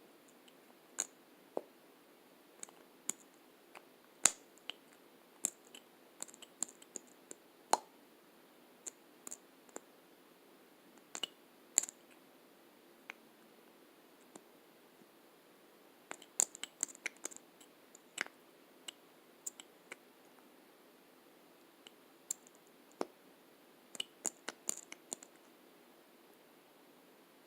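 Lipstick cases clicking and tapping: irregular sharp clicks of the caps and tubes, with quick clusters of them about sixteen and twenty-four seconds in.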